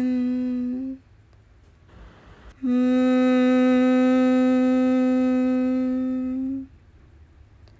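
A woman's bhramari (bee breath) exhalation: a soft in-breath about two seconds in, then a steady closed-mouth hum held on one pitch for about four seconds before it stops. Just before that, at the very start, the tail of a drawn-out spoken cue is heard.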